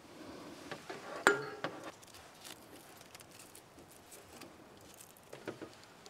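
Small clinks and knocks as a lamp is handled and fitted onto a metal light-stand pole. The loudest is a sharp clink about a second in that rings briefly, and a few softer clicks follow near the end.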